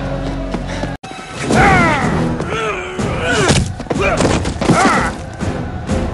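Action-film fight soundtrack: a held musical drone that cuts off abruptly about a second in. It is followed by repeated loud yells and shouts, with punch and kick impact effects between them.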